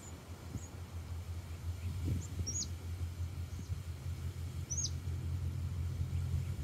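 Outdoor ambience: a few short, high bird chirps, the two clearest falling in pitch, about two and a half and five seconds in, over a steady low rumble.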